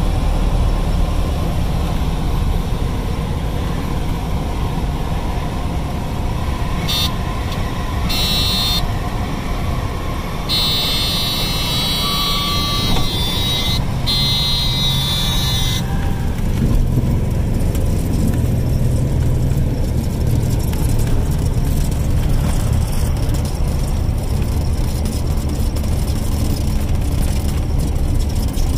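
Cockpit sound of a small single-engine propeller airplane landing, its engine droning steadily at low power. About a quarter of the way in, a buzzing warning horn sounds in two short blips and then holds for several seconds before cutting off suddenly. This is typical of the stall warning horn going off in the landing flare.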